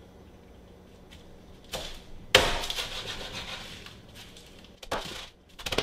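Meat cleaver chopping through lemongrass stalks onto a wooden cutting board: a few separate, unevenly spaced chops, the loudest about two and a half seconds in, trailing off briefly after it.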